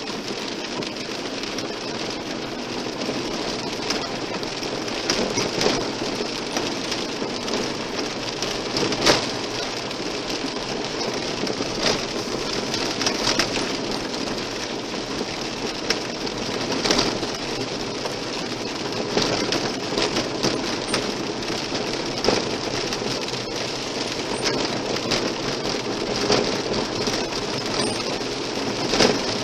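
Car tyres running on a gravel road, a steady rushing noise heard from inside the car, with scattered sharp knocks from the rough surface.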